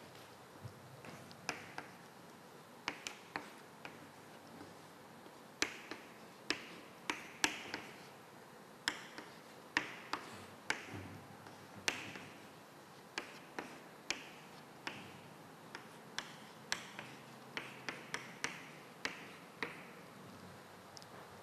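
Chalk on a blackboard while writing: an irregular run of sharp taps as the chalk strikes the board, several followed by a short scratchy stroke.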